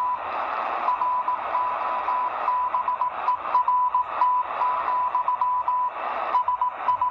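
W1AW Morse code practice transmission heard through a Degen DE1103 shortwave portable's speaker: one steady beep keyed on and off in dots and dashes over radio hiss. The code is sent by computer, so the keying is very stable.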